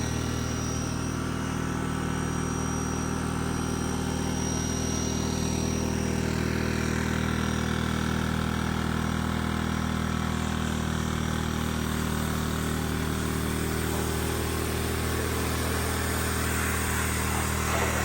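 A small gasoline engine runs steadily at constant speed, powering a pressure-washing setup, with the hiss of the water spray over it.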